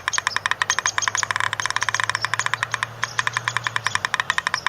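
Woodpecker drumming: a rapid, even rattle of bill strikes on wood, well over ten knocks a second, with brief breaks about three and about four seconds in.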